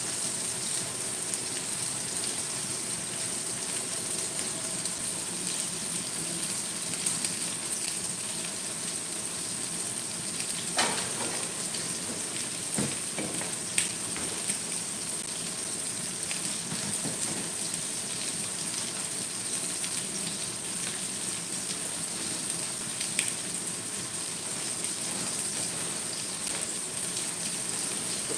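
Chicken pieces pan-frying in oil in a stainless steel wok with garlic, spring onion and chili, being browned: a steady sizzle with a few sharp pops.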